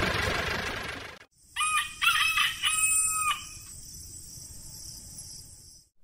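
A rumbling noise fades out over the first second, then a rooster crows once, a cock-a-doodle-doo in three rising and falling phrases lasting about two seconds. A steady high-pitched hiss carries on after the crow until just before the end.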